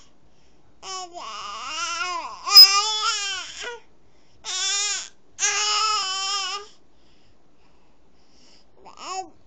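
A baby fussing, with whiny, complaining cries that rise and fall in pitch, in a few bouts over the first seven seconds, the loudest about two and a half seconds in. After a pause, a short whimper near the end.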